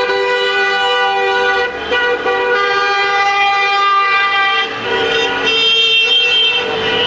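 Several car horns blowing long, steady blasts at once, celebratory honking from a passing motorcade, with short breaks about one and a half and four and a half seconds in and the horns changing as the cars go by.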